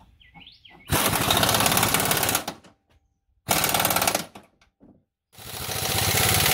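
Impact wrench driving in a rear control-arm bolt in three bursts of rapid hammering, the last one building up over about a second.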